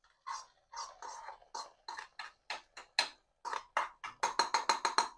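A spoon scraping ghee-fried cashews and raisins out of a small metal pan into a pot of payasam. It makes a run of short scraping strokes that quicken to about eight a second near the end.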